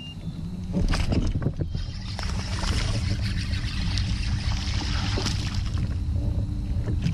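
A bass being fought and reeled in to a kayak: a sudden jump in sound with a few sharp clicks about a second in, then reel cranking and the fish splashing at the surface over a steady low rumble.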